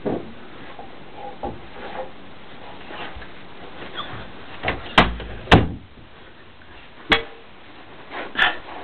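Scattered knocks and clunks of someone moving about and handling things, over a steady hiss. The two loudest come about five seconds in, half a second apart, and another follows a second and a half later.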